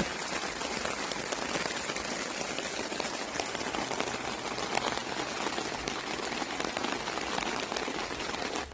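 Steady rain falling, a dense patter of many small drops, starting and stopping abruptly at edit cuts.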